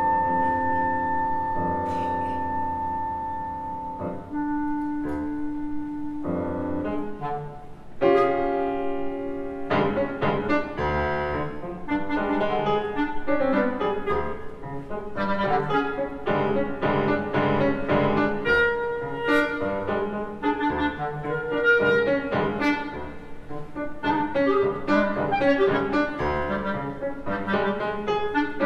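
Instrumental ensemble playing a classical-style suite. It opens on long held notes, then from about eight seconds in turns into a busier passage of quick-moving notes.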